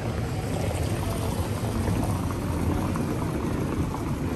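City street ambience: a steady low rumbling noise, with no single sound standing out.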